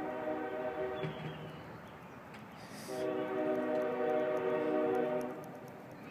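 CSX diesel locomotive's air horn sounding as the train approaches: the end of one blast fading away over the first second, then about a second later a longer steady blast lasting over two seconds before it dies away.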